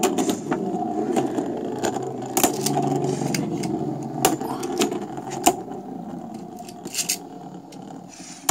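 Two Beyblade Burst spinning tops whirring and scraping as they spin on a wooden chessboard, with a few sharp clicks as they knock together. The spinning noise grows quieter toward the end.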